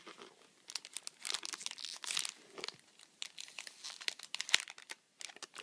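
Gift wrapping crinkling and crackling in the hands as a wrapped soap is turned over and unwrapped, in irregular bursts with a brief lull near the end.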